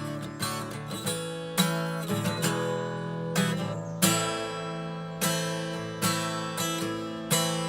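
Acoustic guitar strumming chords, each strum ringing out before the next.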